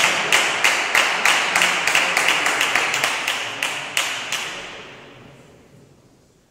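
Spectators clapping in unison, about three claps a second over a wash of crowd noise, dying away about five seconds in.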